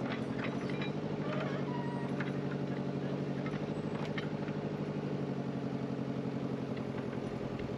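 Excavator's diesel engine running steadily, a low even drone with a fast firing pulse, and a few faint clicks from the machine working.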